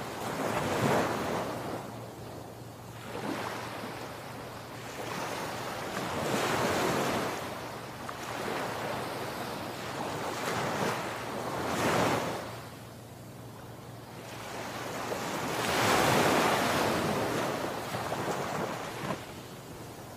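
Sea surf breaking on a sandy beach: a rushing wash that swells and fades every few seconds as each wave crashes, the loudest surge about sixteen seconds in.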